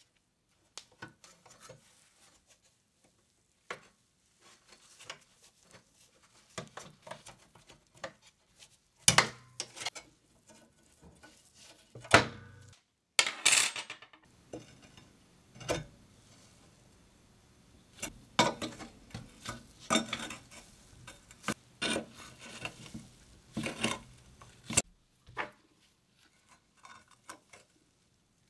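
Rusty sheet-steel parts of a hurricane oil lamp being taken apart by hand: irregular clinks, knocks and short scrapes of metal, the loudest about nine and thirteen seconds in. Near the end a screwdriver blade scrapes and pries at the bent tabs of the lamp's top cap.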